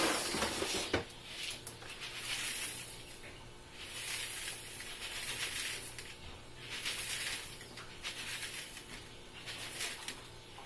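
Whole wheat grain being scooped from a paper sack, then poured from a plastic cup into a plastic bucket in several short trickles of a second or two each.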